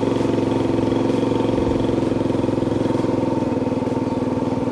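Small motorcycle engine running steadily at an even speed while riding.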